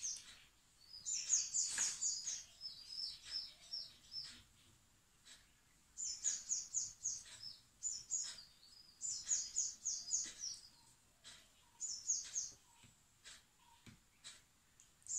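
A bird chirping in quick, high-pitched bouts of five or six falling notes, each bout lasting about a second, repeating on and off with short pauses.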